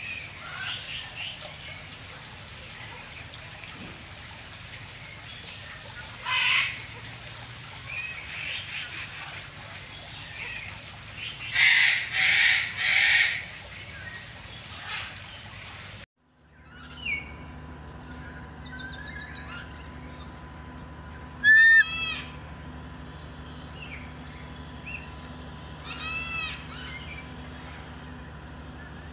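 Bird calls. A few short, harsh calls sound in the first half, three of them in quick succession near the middle. After an abrupt change in the background, two quick runs of arched, repeated chirps follow.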